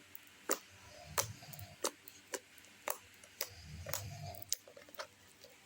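Homemade glue slime being poked and worked by hand, giving off sharp little clicks and pops, a bit under two a second, as air pockets in it burst.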